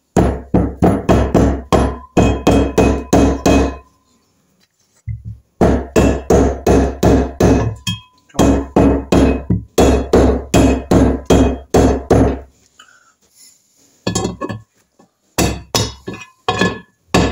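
Rapid hammer blows, about four a second in runs with short pauses, each with a brief metallic ring, driving the chilled timing-side main bearing outer race home into the heated aluminium crankcase of a 1975 Triumph Trident T160 engine.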